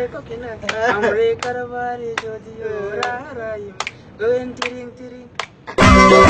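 A man singing a slow melody unaccompanied, holding long notes, with sharp hand claps between phrases. Near the end it cuts suddenly to loud recorded music.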